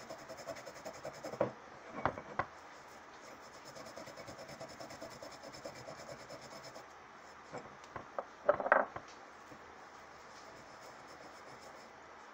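A damp cloth rubbed hard against a glass jar, scrubbing off stubborn label adhesive with a coconut oil and baking soda paste. The rubbing is soft and steady, broken by a few short knocks, with a louder cluster of them about two-thirds of the way in.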